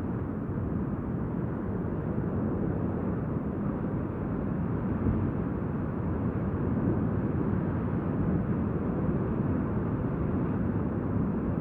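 Steady low rushing noise with no distinct sounds in it.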